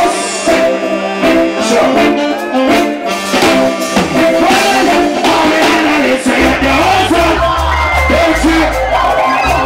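Reggae music with a singer's voice over the band; a deep bass line comes in about six seconds in.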